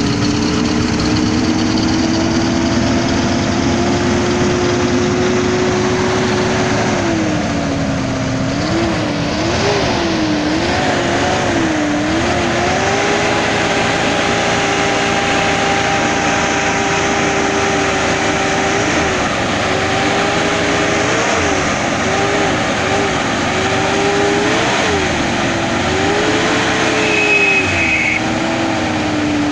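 1981 Chevrolet Itasca motorhome's gasoline engine running, its revs creeping up at first, then the throttle blipped up and down several times. It is running on fresh gas through a flushed tank and all-new fuel lines.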